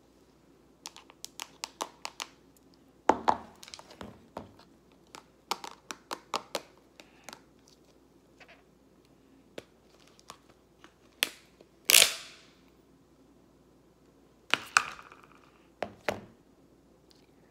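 Plastic deli tub of thick yellow goo being handled: irregular small clicks and crinkles from the plastic tub and lid, and sticky crackles as fingers poke the contents. The loudest is a sharp crackle about twelve seconds in that fades over half a second.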